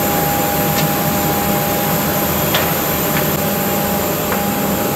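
Steady whirring hum of a parked airliner's air and power systems at the gate, with a few faint clicks.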